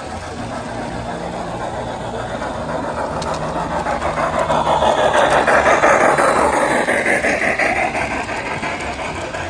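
G-scale garden model train rolling past on its track: the running noise of its wheels on the rails grows louder to a peak about six seconds in, then fades as the cars go by.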